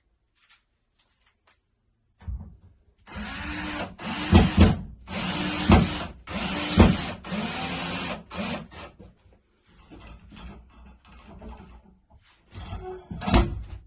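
Power drill running in about five short bursts, its motor pitch rising and falling with each one, as it drives mounting screws into the wall, then softer clicks and another short burst near the end.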